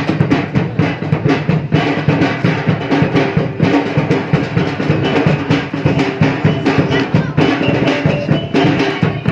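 Fast, dense drumming with held pitched notes sounding over it: percussion-led music accompanying a silek performance.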